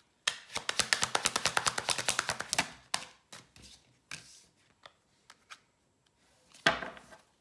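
A deck of tarot cards being shuffled or riffled by hand: a fast run of crisp card clicks, about fifteen a second, for a little over two seconds. Then a few light taps, and a sharper slap near the end as cards are laid down on the wooden table.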